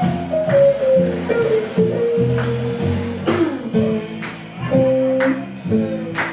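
Live jazz band playing: regular drum kit hits over a bass line, with a melody line above that slides down in pitch and holds long notes.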